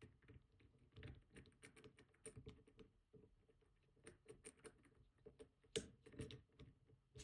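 Faint, irregular small metallic clicks and ticks as a disk-detainer pick is worked out of the keyway of an opened Rosengrens 32A81 safe deposit box lock, with a couple of sharper clicks toward the end.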